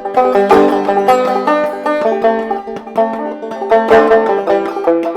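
Mulheron open-back banjo played clawhammer style, a steady run of plucked notes and brushed strums between sung verses.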